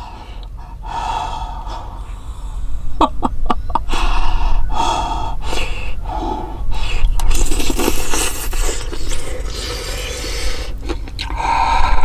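A woman eating spoonfuls of porridge, with gasping, breathy exhales through an open mouth and short murmurs of pleasure between mouthfuls.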